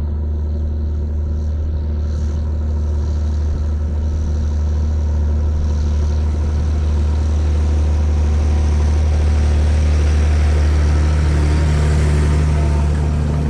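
John Deere tractor's diesel engine running steadily, a strong low hum that grows slightly louder through the middle.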